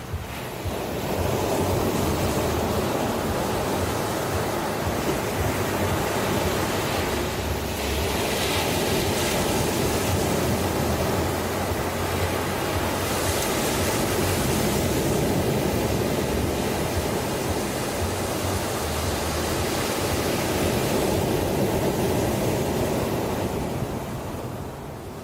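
Ocean surf washing in one long swell that builds about a second in, holds as a steady rushing hiss, and fades near the end.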